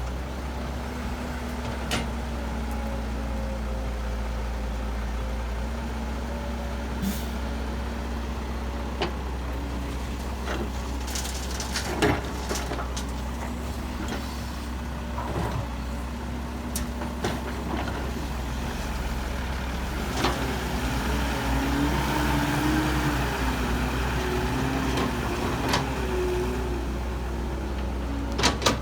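Heavy diesel engine of a dump truck or bulldozer running steadily, its pitch rising and wavering about two-thirds of the way through as it works harder. Scattered sharp knocks and clanks sound over it.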